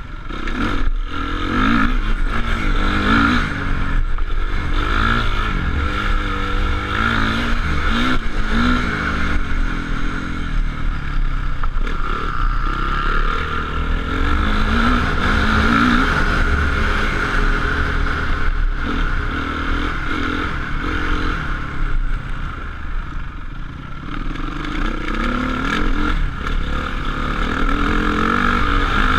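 Motocross bikes on track: dirt-bike engines revving, their pitch rising and falling again and again, with several engines overlapping at times.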